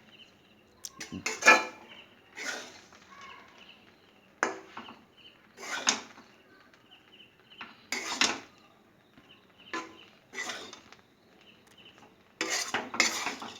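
A spatula scraping and stirring grated coconut as it browns in ghee in a kadai, one stroke every second or two.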